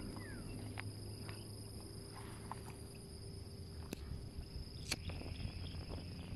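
Outdoor ambience dominated by a steady, high insect hum, with a few sharp clicks in the second half.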